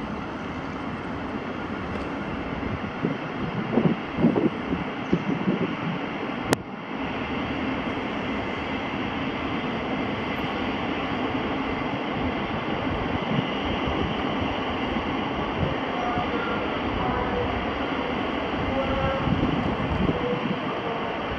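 Distant jet airliner engines running with a steady drone. There are a few uneven thumps about three to six seconds in, and a single sharp click about six and a half seconds in.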